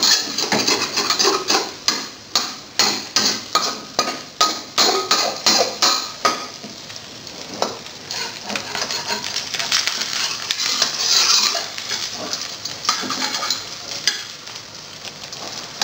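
Spatula scraping and knocking against a wok as a thin egg omelette is rolled up in oil, about two to three knocks a second for the first six seconds. After that, mostly the egg sizzling in the oil, with a few lighter scrapes.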